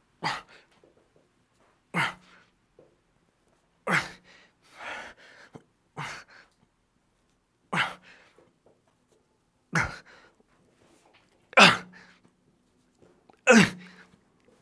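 A man's forceful grunting exhalations, one with each rep of a heavy dumbbell press, about every two seconds. The last two are the loudest, as the set nears its end.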